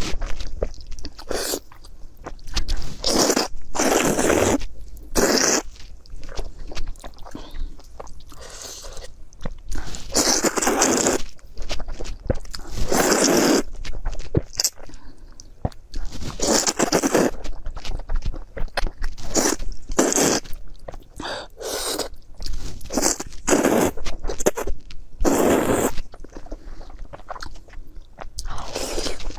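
Close-miked eating: a person biting and chewing food with crunchy, wet mouth sounds, in irregular bursts of about a second each.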